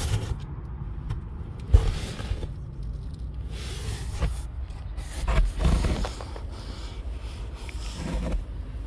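Handling noise: scrapes, rustles and a few dull knocks over a low rumble, the sharpest knock about two seconds in.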